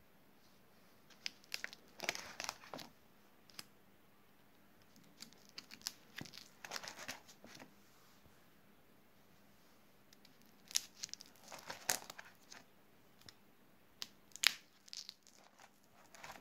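Clear plastic sleeve pages of a ring binder being turned, crinkling and rustling in four short bursts with quiet pauses between.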